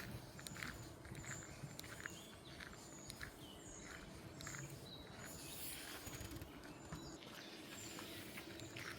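Footsteps walking at a steady pace on a path, with small birds chirping in short, high, repeated notes.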